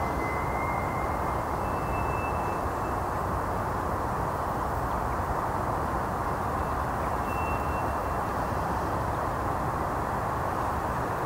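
A steady, unbroken outdoor drone, loudest in the middle range with a low rumble beneath, and a few short faint high whistles about two seconds in, around seven seconds in and near the end. Its source is unknown; the recordist guesses wind blowing across a pipe somewhere nearby.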